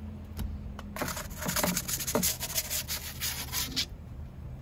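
Wooden pizza peel scraping across the oven's stone floor as a pizza is slid off it, about three seconds of rubbing and scraping starting about a second in.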